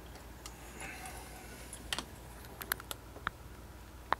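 Scattered light clicks and taps of hard objects being handled over a steady low room hum, a cluster about two to three seconds in and a sharper click near the end.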